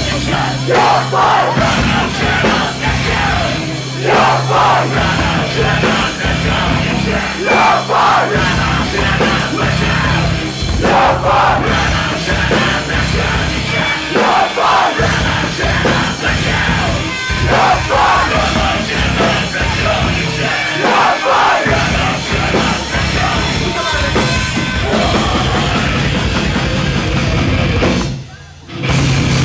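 Live heavy rock band playing loudly: pounding drums and yelled vocals over the band. The sound drops out briefly near the end.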